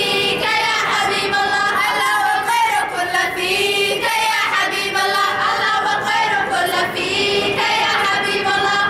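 Choir of young girls singing a nasheed together.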